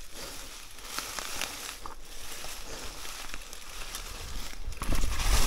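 Downhill mountain bike tyres rolling and sliding through dry leaf litter: a steady crackling rustle with scattered small clicks, getting louder about five seconds in with a low rumble underneath.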